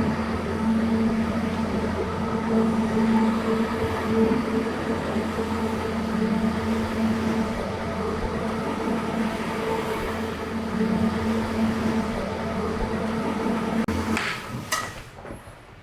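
A carpet-cleaning machine running steadily with a constant motor hum and a rush of air and water. It cuts out about fourteen seconds in, followed by a couple of short knocks.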